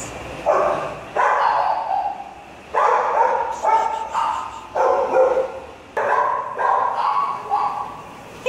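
Labrador retriever puppy barking in play, a run of about seven short barks while it tugs at a leash.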